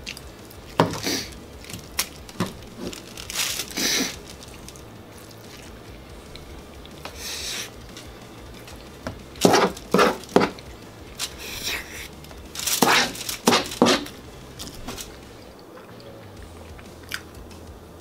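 Aluminium foil crinkling and rustling in short, irregular bursts as food is scraped and pinched up off it.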